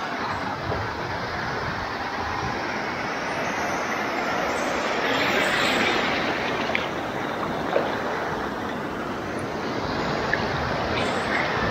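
Small sea waves washing in over the sand in the shallows: a steady rushing hiss that swells about halfway through as a wave runs in, with a few faint ticks.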